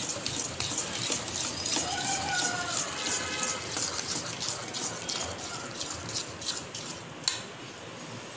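A spoon stirring and scraping gram flour and milk in a stainless steel bowl: a run of irregular soft scrapes and taps as the flour is worked into a lump-free paste, with one sharper click about seven seconds in.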